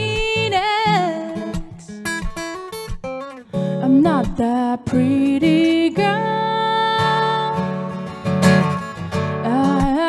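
A woman singing over her own strummed acoustic guitar. She holds one long note in the second half.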